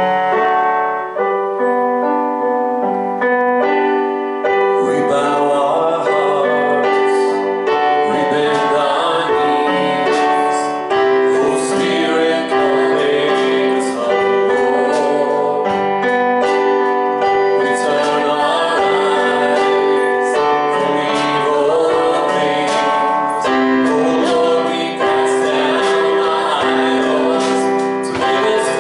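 Live church worship music: keyboard chords with voices singing, growing fuller about five seconds in.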